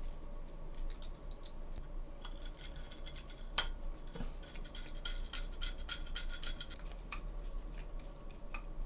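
Small metallic clicks and clinks of a hex screwdriver and nut driver on steel screws and nylon-insert lock nuts, as countersunk screws are tightened through a carbon-fibre drone frame, with a light metallic ringing at times and one sharper click a little over three seconds in.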